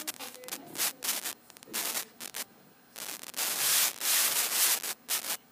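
Rubbing and scraping noise in irregular bursts, with a longer unbroken stretch of about a second and a half a little past the middle.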